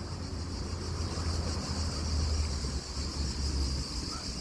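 Steady high-pitched chirring of insects, with an uneven low rumble on the microphone underneath.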